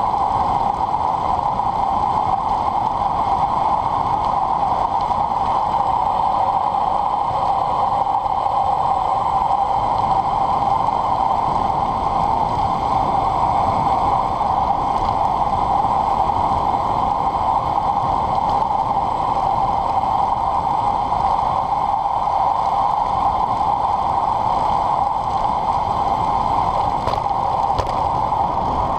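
Steady rushing wind and road noise on a bike-mounted camera as a road bike coasts downhill at about 45 to 55 km/h.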